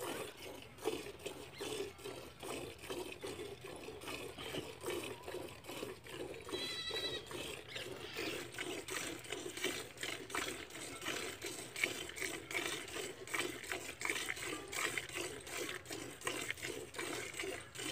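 A cow being milked by hand into a steel bucket: squirts of milk strike the milk already in the pail in a steady rhythm, about three a second. A short high call is heard about seven seconds in.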